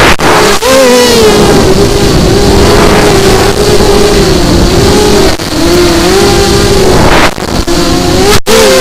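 FPV racing quadcopter's brushless motors and propellers whining loudly, the pitch rising and falling as the throttle is worked. It is picked up by the drone's onboard camera, and it dips briefly a few times near the end.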